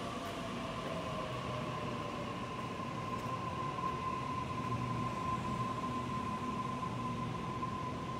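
Sydney electric double-deck suburban train standing at the platform, giving a steady hum with a constant high whine from its onboard equipment.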